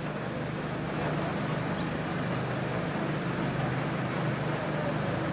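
Steady low engine hum under a noisy background, with no car passing by.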